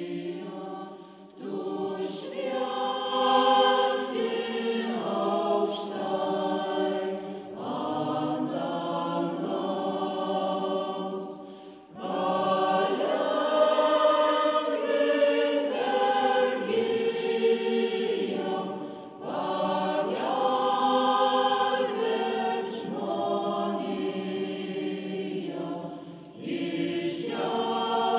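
Mixed choir of women's and men's voices singing together in long phrases, with short breaks between phrases.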